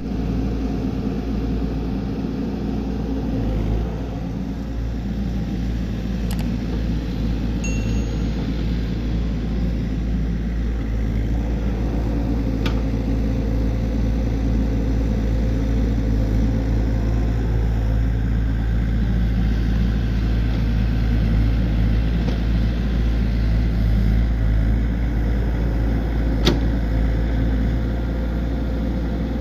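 Excavator's diesel engine running steadily, with a few short sharp clicks over it.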